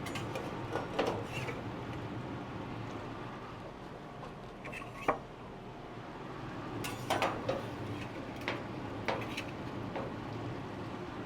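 Metal griddle spatulas clinking and scraping on a flat-top griddle: a scattering of short, sharp clicks, the sharpest about five seconds in and a cluster around seven seconds, over a steady hiss.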